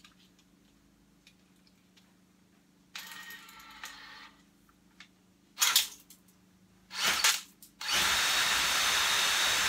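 Cordless drill spinning a chimney-sweep brush on a flexible rod: a few short bursts, then from about eight seconds in it runs steadily with the brush spinning.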